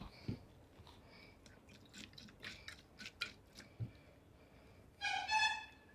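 Scattered light clicks and taps of plastic PET bottles and caps being handled on a table. About five seconds in comes the loudest sound, a brief high-pitched two-note tone.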